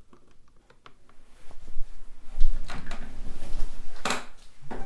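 Handling noise, a low rumble with a few sharp clicks and knocks, as a power supply lead is plugged into a bare laptop motherboard's power connector on a desk.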